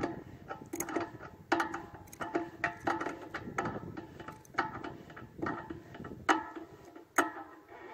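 Wrench snugging up the receive coax connector on the dish feed: a dozen or so short metallic clicks and scrapes, a fraction of a second apart.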